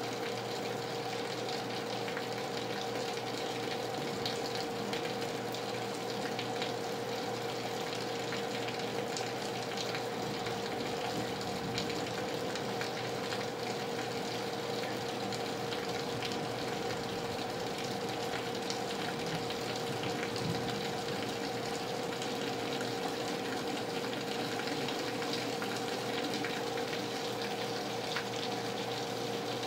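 Heavy rain falling steadily, with water running and gushing from leaky gutters and scattered drops ticking. A steady tone sits underneath throughout.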